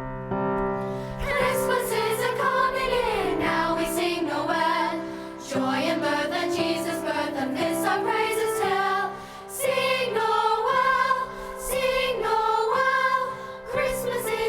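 Choir singing a holiday song over keyboard accompaniment; the accompaniment sounds alone for about the first second before the voices come in.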